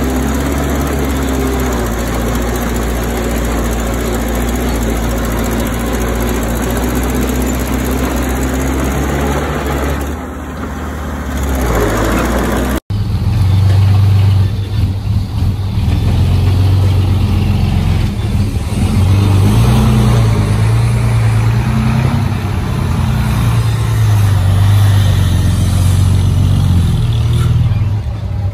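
Heavy diesel earthmoving machinery running: a steady engine note that dips and then revs up about two-thirds of the way into the first half. After an abrupt cut, a louder, deep diesel engine works under load, its pitch rising and falling.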